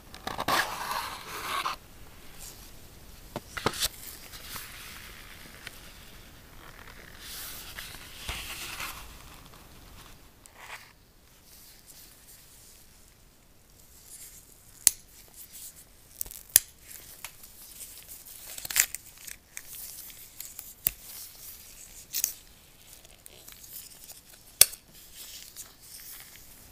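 Close-up unboxing handling sounds of phone packaging. There is a loud sliding, tearing rustle at the start and another about halfway through, then sharp clicks and taps scattered through the second half as a white USB-C cable's paper wrap is pulled off.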